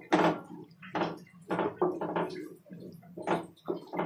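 A spoon stirring thick, wet prawn masala in a stainless steel pressure cooker. It makes a run of short squelching scrapes, about two strokes a second.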